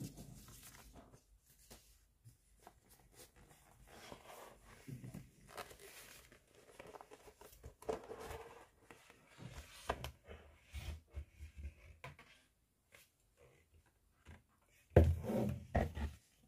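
Crinkly paper drawstring dust bag and the photobook box being handled: scattered rustling, crinkling and light taps. Near the end comes a short run of heavier thumps as the large hardcover photobook is set down.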